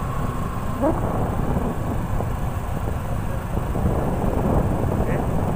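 Wind rushing over the microphone of a moving motorcycle, with engine and road noise underneath, steady throughout. A short rising tone sounds about a second in.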